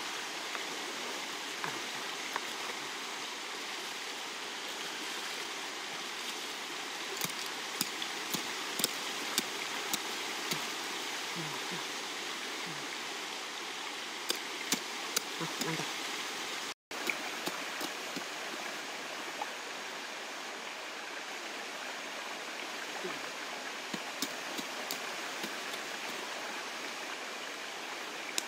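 A small pick-hoe chopping and scraping into dry soil, with scattered sharp knocks in runs, over a steady rushing background noise.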